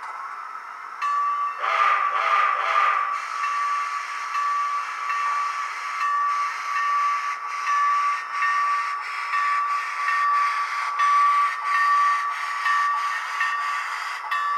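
Tsunami2 DCC sound decoder in an HO scale brass Southern Pacific A-6 4-4-2 playing a steam whistle blast about a second in. Steady steam chuffs follow at about two beats a second, over hiss and a steady tone, through the model's small speaker.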